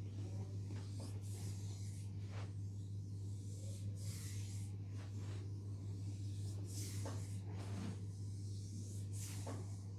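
Hands rubbing and stroking over skin in a leg massage, heard as soft, irregular swishes, over a steady low hum.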